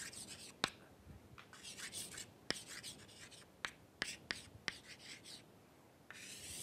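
Chalk scraping across a chalkboard in short writing strokes, with sharp taps of the chalk against the board between them.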